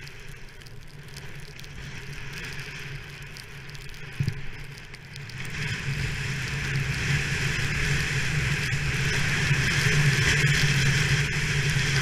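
Skis sliding over fresh snow, with wind rushing over the GoPro, growing louder about halfway through as the skier picks up speed. A single short knock a little after four seconds.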